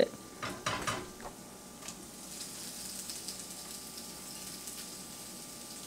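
Homemade cream Alfredo sauce sizzling faintly in a nonstick skillet on low heat, with a few brief scrapes of the silicone spatula near the start.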